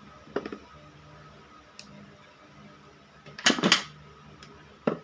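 Hand tools clicking and clacking while a red electrical wire is stripped: a short snap just under half a second in, a louder double clack about three and a half seconds in, and another sharp click near the end.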